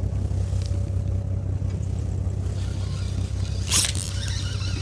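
Fishing boat's engine running with a steady low drone, and a short sharp burst of noise about three and a half seconds in.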